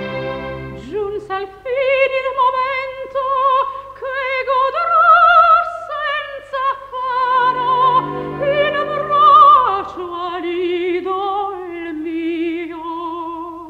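Operatic coloratura soprano singing in Italian with a wide, even vibrato, in a series of sustained phrases. Quiet orchestral chords are held beneath the voice through the middle.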